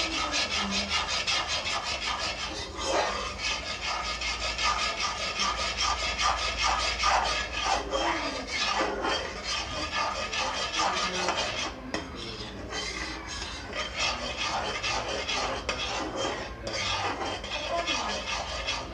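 Metal spoon scraping continuously around a steel kadhai as boiling sugar syrup is stirred, a rhythmic rasping in quick even strokes. The syrup is being cooked down with a little ghee into tagar, the grainy sugar base for besan laddu.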